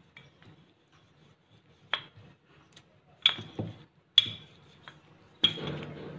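A rolling pin and hand knock and clink against a hard countertop and plate while bread slices are flattened: four sharp knocks a second or so apart, the last followed by a short rustle of handling.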